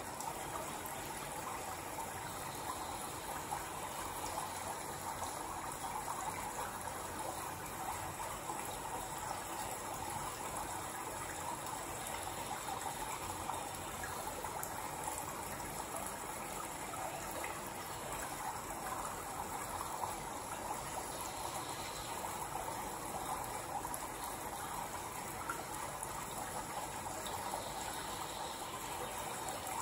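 A steady, even rushing noise that holds at one level without change.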